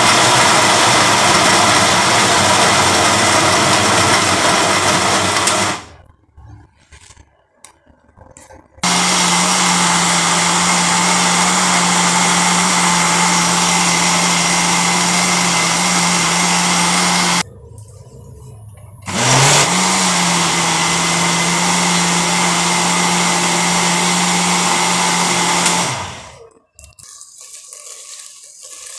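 Small Elekta countertop blender grinding a porridge mix, run in three spells of about six to nine seconds each, with short stops between them. The motor hum settles to a steady pitch after each restart.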